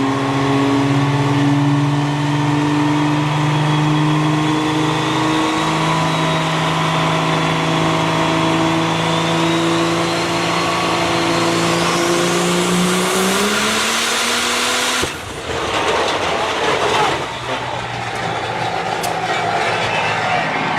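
A 3000 hp truck engine pulling under load on a dyno, its pitch climbing steadily for about fourteen seconds. About fifteen seconds in the engine note breaks off suddenly into harsh, noisy bursts as the engine lets go, and a lower, steadier drone follows.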